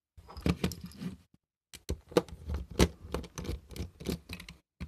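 Screwdriver turning small screws out of the plastic battery cover of a solar wall light: a string of short clicks and scrapes of metal on hard plastic, with a brief pause about a second and a half in.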